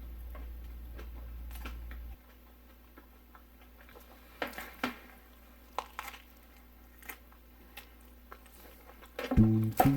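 Faint chewing and mouth sounds of someone eating a burger, with scattered soft clicks, over a low hum that drops away about two seconds in. Near the end, plucked guitar music starts, louder than the chewing.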